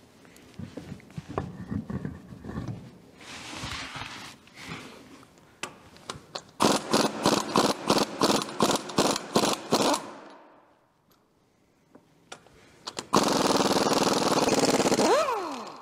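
A quick run of hammer blows on metal on the rear axle, about three a second, from a dead-blow ball peen hammer. About three seconds later a power tool runs steadily for a couple of seconds, then winds down with a falling pitch.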